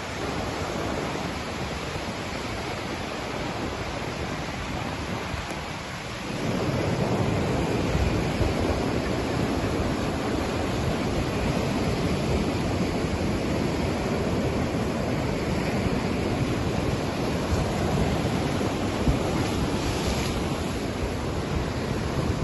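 Sea surf breaking and washing over flat rock shelves, a continuous rushing wash that gets louder about six seconds in. Wind buffets the microphone with a low rumble.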